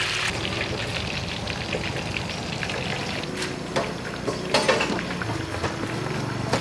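Oil sizzling steadily as blue crabs deep-fry, a little softer after the first moment. Several sharp clicks and knocks come in the second half.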